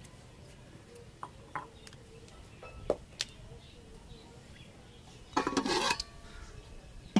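A metal lid clattering and scraping against the rim of a large metal cooking pot for under a second, about five seconds in. Before it come a few light knocks on the pot.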